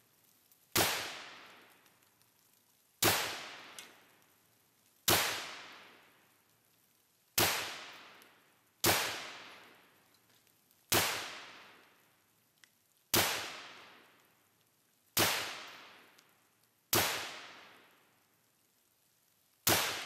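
Ten gunshots fired at a steady pace, roughly one every two seconds, each with a long echo that fades away over a second or more.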